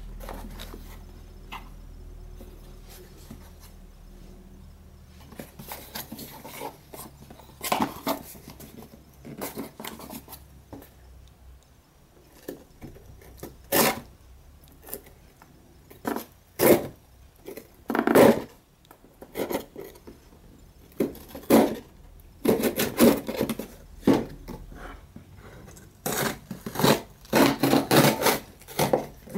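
Cardboard shipping box being handled and turned over on a desk, giving irregular knocks and scrapes, then a quick run of scraping and ripping as packing tape along the box seam is slit with a small metal blade near the end.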